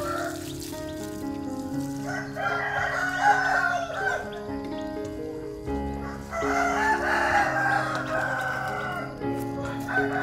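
A rooster crowing twice, each crow lasting a couple of seconds, over background music with sustained low notes.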